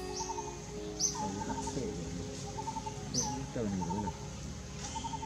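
Birds calling. A short, high, sharply falling chirp repeats about every two seconds over quick low trills. A lower wavering call comes a little after three and a half seconds.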